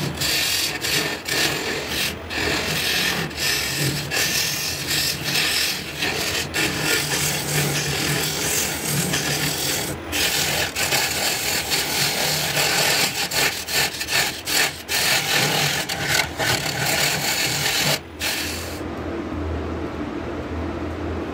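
A turning tool cutting into a large Albizia lebbeck blank spinning on a woodturning lathe: a loud, rough, uneven scraping hiss with a few brief breaks as the tool is lifted. Near the end the cutting stops, leaving the lathe's motor running with a steady low hum.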